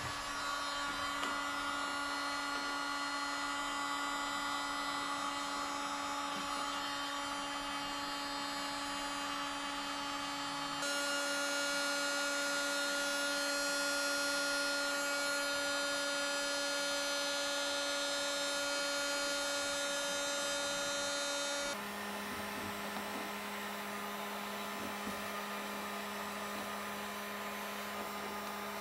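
Electric heat gun blowing steadily, a hiss of air with a motor whine, softening the old decals on a wooden pinball cabinet so they can be scraped off. The whine changes pitch abruptly twice, about eleven and twenty-two seconds in.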